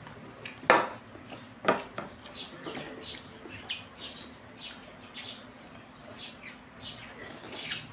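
Close-miked mukbang eating: a man chewing boiled banana heart, with two loud wet mouth smacks about a second apart near the start. Short high chirps recur throughout.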